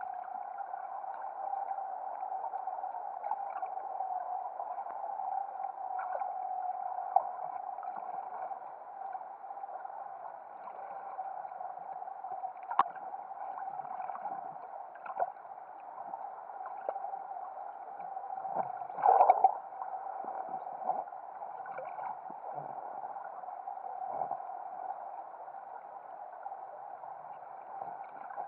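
Muffled underwater sound from a camera submerged in its housing: a steady hum with scattered sharp clicks, and a louder cluster of knocks about two-thirds of the way through.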